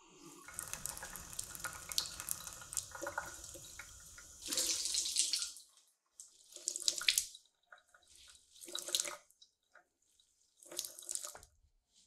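Kitchen mixer tap turned on and water running into a sink for about five seconds, louder near the end, then shut off. Three short rushing sounds follow, a couple of seconds apart.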